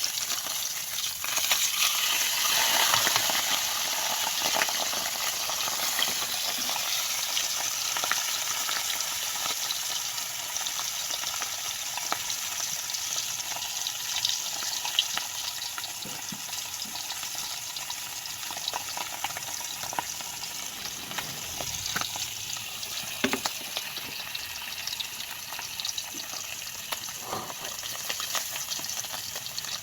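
Pompano frying in hot oil: a steady sizzle with scattered pops, loudest a few seconds in and then slowly easing.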